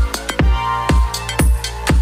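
Background electronic dance music with a steady beat, about two kick-drum hits a second, under sustained synthesizer tones.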